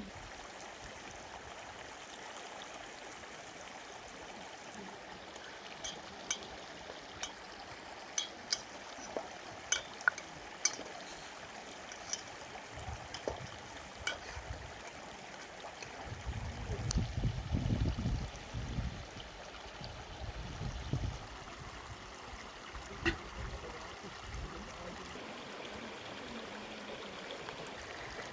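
Steady rushing of running water, like a stream. About a third of the way in comes a scatter of sharp clicks or knocks, and a little past the middle a low rumble, the loudest part.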